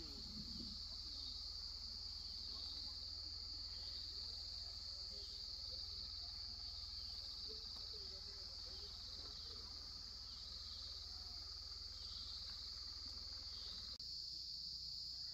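Insect chorus: a steady, high-pitched drone, with a low rumble beneath.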